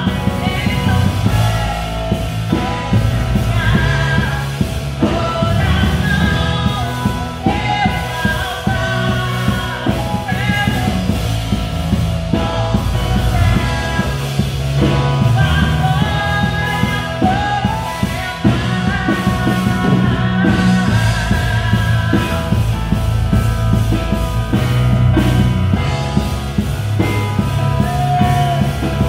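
A woman singing a song into a handheld microphone, accompanied by a Nord Stage 2 stage keyboard, with a steady beat running under it.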